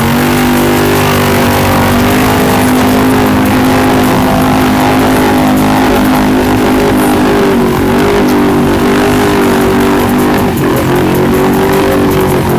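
Polaris RZR side-by-side engine held at high revs while its mud tyres spin in deep mud. The pitch stays mostly steady, dipping briefly twice in the second half as the throttle eases.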